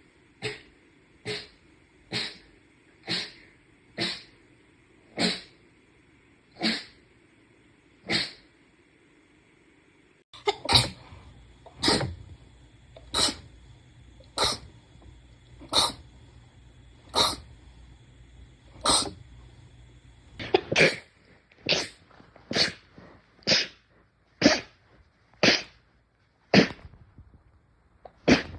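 A long series of short, sharp sneezes, roughly one a second, coming in runs separated by abrupt changes of background.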